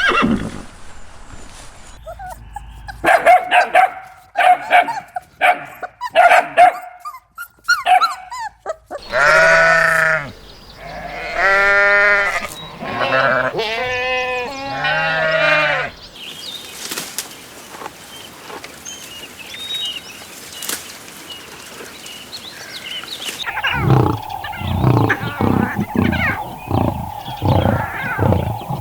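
A run of separate farm-animal recordings: short repeated calls at first, then four long wavering goat bleats of about a second each, then a quieter stretch, and a fast run of pulsed calls near the end.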